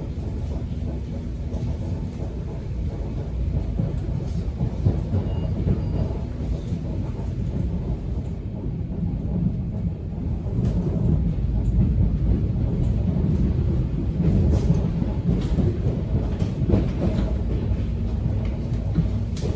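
Subway train running on the rails: a steady low rumble with scattered short knocks and rattles, growing somewhat louder about halfway through.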